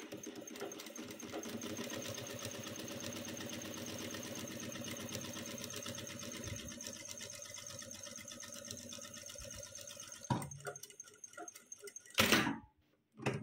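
Sewing machine running at a low speed setting with a steady, fast, even stitching rhythm for about ten seconds, then stopping. A few short clunks follow near the end.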